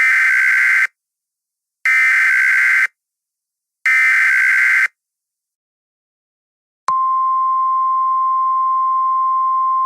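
Emergency Alert System digital header: three harsh, buzzing one-second data bursts about two seconds apart. About seven seconds in, the steady single-pitched 1050 Hz Weather Radio alert tone starts, signalling that a warning message is about to be read.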